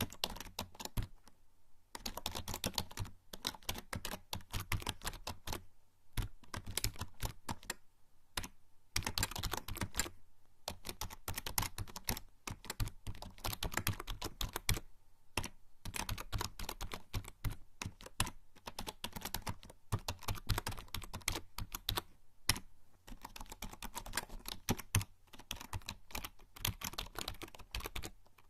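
Typing on a membrane computer keyboard: rapid runs of soft key clicks in bursts of a few seconds, with short pauses between them.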